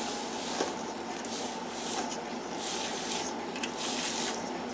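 Silicone spatula smoothing thick chocolate sponge batter in a metal springform pan: soft scraping strokes, roughly one every two-thirds of a second.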